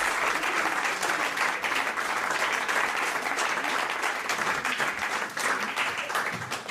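Live studio audience applauding, the clapping thinning out over the last second or two.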